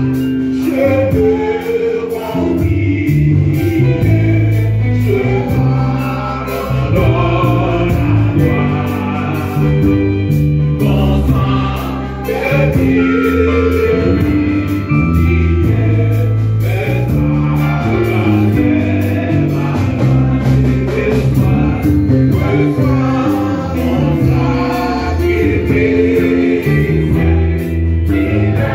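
Live gospel worship music: an electric bass guitar plays a moving bass line under singing led on a microphone, with several voices singing along.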